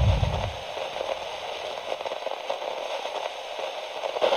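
A deep bass fades out in the first half-second, leaving a steady crackling, static-like noise with many small clicks; a short louder burst comes near the end.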